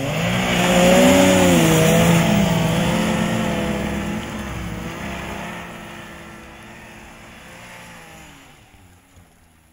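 Ski-Doo Expedition 900 ACE Turbo snowmobile, its turbocharged three-cylinder four-stroke engine revving under load as the sled churns out of deep snow. Loudest about a second in, with the pitch rising and falling, then fading steadily as the sled drives away.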